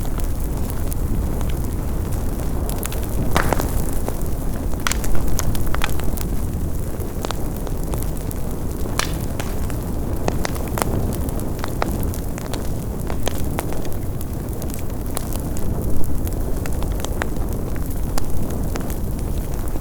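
Big bonfire burning: a steady low roar of flames with frequent sharp crackles and pops of logs cracking in the heat, a few louder pops about five seconds in and near sixteen seconds.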